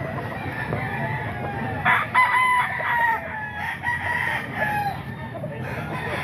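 Gamefowl roosters crowing: one loud crow starts about two seconds in and lasts about a second, with other roosters crowing more faintly before and after.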